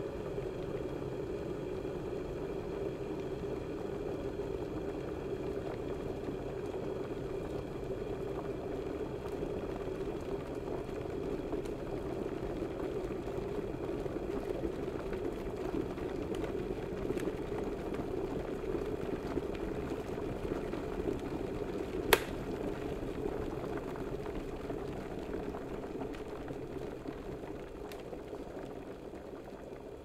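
Electric water heater with its water at a steady rumbling boil. Well past halfway through there is a single sharp click, the heater's switch cutting off, and the boiling then slowly dies down.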